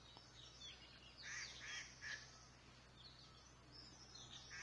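Small birds chirping faintly in the background, with a quick run of three chirps between one and two seconds in and more scattered calls near the end. A low steady hum lies underneath.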